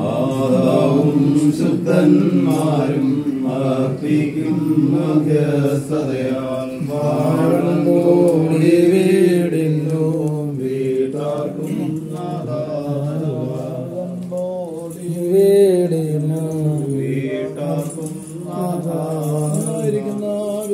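A prayer chanted by voices in a slow, sustained melody, pitch gently rising and falling.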